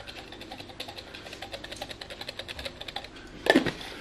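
Grated Parmesan being shaken from a plastic shaker container, a rapid, even run of small taps and rattles. There is one louder knock near the end.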